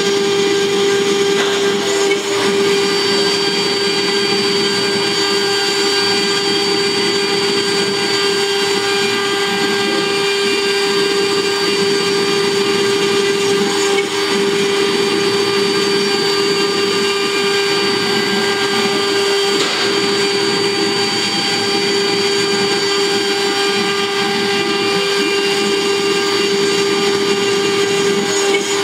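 CNC wood router's high-speed spindle running with a steady whine while its engraving bit cuts a relief into wood.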